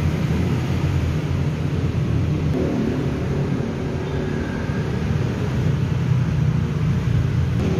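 Silver laptop running with a steady low rumbling hum that does not change.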